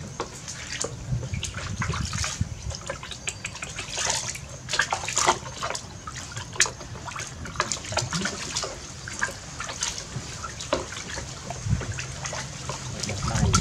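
Water sloshing and splashing in a plastic basin as hands wash a baby monkey sitting in it, in many small, irregular splashes and trickles.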